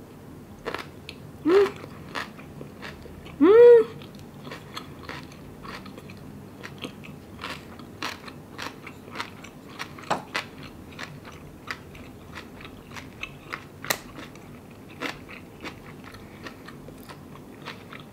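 Close-up chewing of a big mouthful of kimbap topped with a piece of kimchi: many small wet clicks and soft crunches. Two short hums with the mouth full come about one and a half and three and a half seconds in, the second the louder.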